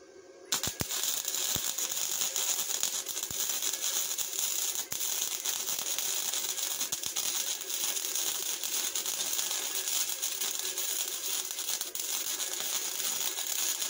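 MIG (wire-feed) welder arc crackling in one continuous bead of about thirteen seconds, starting abruptly half a second in and stopping abruptly near the end. Not quite the even bacon-frying sizzle of a well-set arc: the voltage is a little low.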